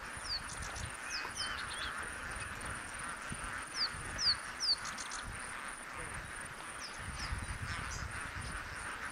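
Small birds giving short, high, downward-sliding chirps, loudest in a cluster about four to five seconds in. Under them runs a steady murmur from the massed flamingo flock on the lake, with a low rumble of wind on the microphone.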